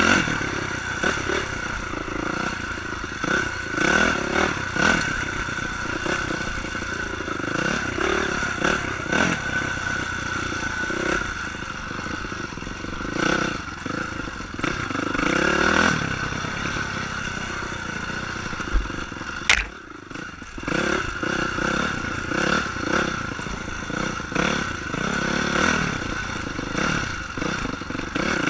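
Honda CRF450 dirt bike's single-cylinder four-stroke engine, revving up and down hard over and over while riding a rough woods trail, with clattering over the bumps. About two-thirds of the way through there is a sharp click and the engine sound briefly drops away before picking up again.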